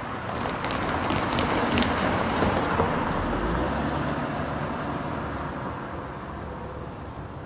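A car passing on the road by a railway crossing. The tyre noise swells to its loudest about two to three seconds in, with a few light ticks, then fades away.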